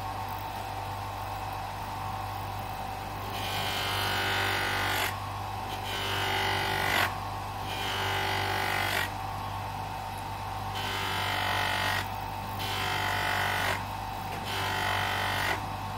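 Small bench grinder fitted with waxed buffing wheels, its motor running with a steady hum. From about three seconds in, a knife blade is pressed to the spinning buffing wheel in about seven passes, each a hissing rub lasting about a second: the edge is being polished on the buff.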